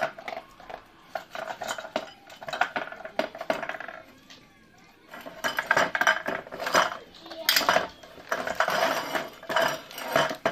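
Metal muffin tin clattering and scraping on a wooden floor in bursts as a dog noses tennis balls out of its cups to get at the kibble beneath, the tray shifting as he pushes, with a short lull about four seconds in.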